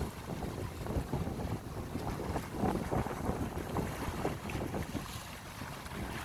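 Wind gusting across the microphone in uneven buffets, over the wash of sea waves on the shore.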